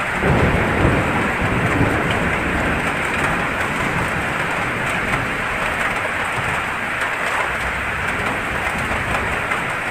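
Heavy rain falling steadily, with a low rumble of thunder swelling in the first couple of seconds.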